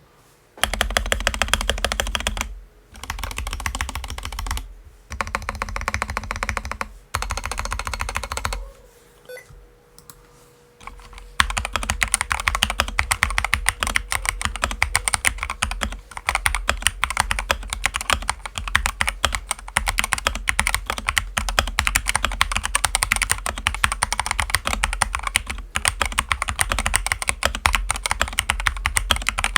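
Akko 3068S mechanical keyboard with Akko CS Jelly Pink switches being typed on. First come four short bursts of keystrokes, then a pause of about three seconds, then fast continuous typing.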